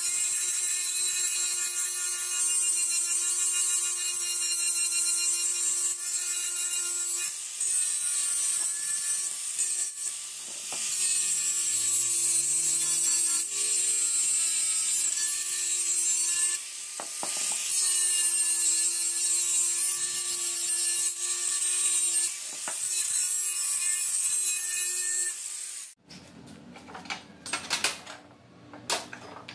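Angle grinder with an abrasive disc grinding paint and rust off a metal vise body: a steady motor whine under a loud high grinding hiss, dipping briefly a few times as the disc eases off the work. Near the end the grinder stops and a few short clicks and knocks follow.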